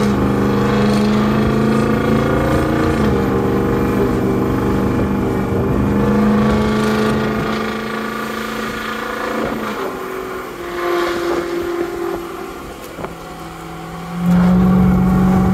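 Ford 6.0 Power Stroke V8 turbo-diesel with a straight-piped exhaust pulling under about 10,000 pounds of load, heard from inside the cab. Its note steps up and down in pitch several times, eases off for a few seconds about ten seconds in, then comes back loud near the end.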